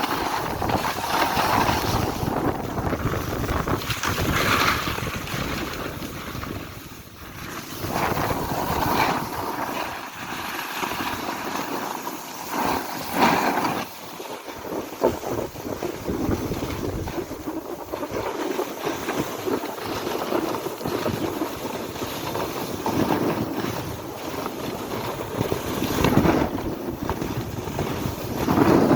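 Wind buffeting the microphone, a loud rushing noise that swells and eases in gusts, with a brief dip about seven seconds in.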